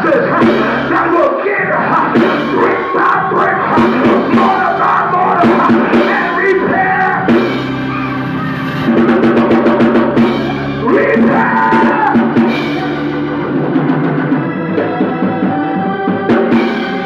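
Live church worship band music: sustained keyboard chords over a drum kit with cymbal hits.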